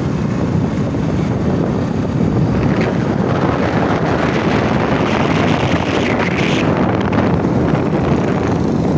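Wind buffeting the microphone on a moving motorcycle, over the bike's engine and tyre noise: a loud, steady rushing.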